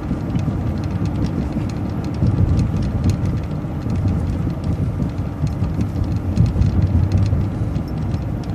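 Transit bus on the move, heard from inside: a steady low engine and road rumble with faint light rattles.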